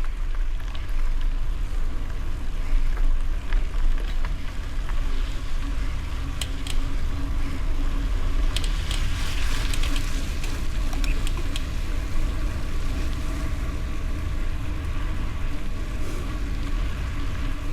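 Wind rumbling on the microphone over bicycle tyres rolling on gravel, with scattered small clicks and rattles from the bike.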